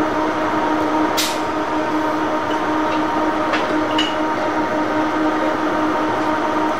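An EF63 banking locomotive eases up to the front of a standing 189-series express to couple, over the steady electric hum of the standing train equipment. A short hiss of air comes about a second in, and two sharp clanks come around three and a half and four seconds in as the locomotive closes up and stops.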